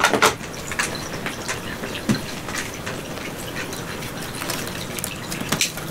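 Room ambience of irregular small clicks and taps over a faint steady low hum.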